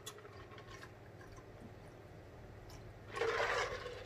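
A man drinking water from a large jug: faint gulps, then a brief louder rush of noise about three seconds in.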